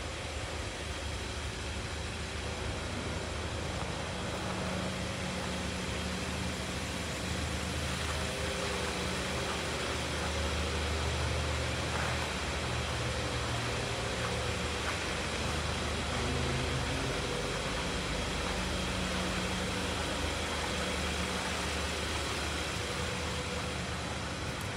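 A steady low machine hum under an even hiss, a little stronger in the middle.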